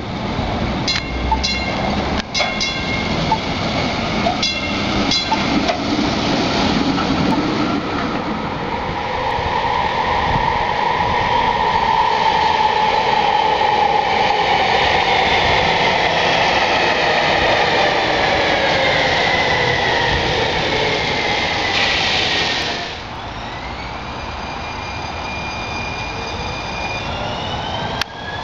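San Diego Trolley cars running on rail. A bell rings in short dings over the first few seconds. Then a light-rail train's motor whine falls slowly in pitch for about twelve seconds. After a sudden change, a steady high whine and a rising whine near the end come from a red Siemens train pulling away from a station.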